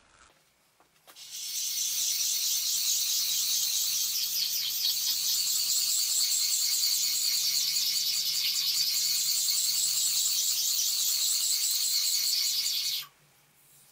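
Flat abrasive stone rubbed by hand over the ground steel table of an Eagle Mk1 surface grinder, a steady scraping hiss. The stone is knocking down any high spots. The scrape starts about a second in and stops abruptly near the end.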